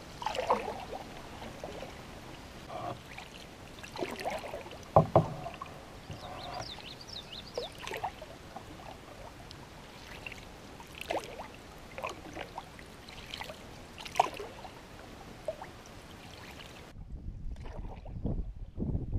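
Canoe paddle strokes in calm water: the wooden blade dipping and pulling, with drips and splashes at irregular intervals and a louder splash or knock about five seconds in. Near the end the sound turns to a lower, duller rush of water close to the hull.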